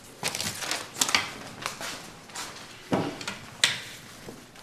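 Paper banknotes rustling as they are counted by hand, with scattered sharp clicks of abacus beads.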